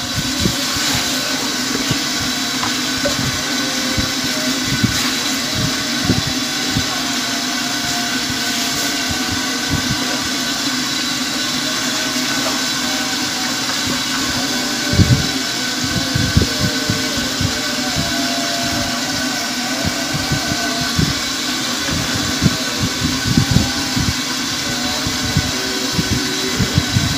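Flour-coated chicken pieces deep-frying in a wok of hot oil: a steady sizzle, with irregular soft low thumps throughout.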